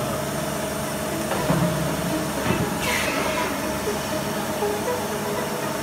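Mazak INTEGREX 400 SY multitasking lathe running as its B-axis milling head swivels: a steady mechanical hum with a few constant tones. A brief hiss comes about three seconds in.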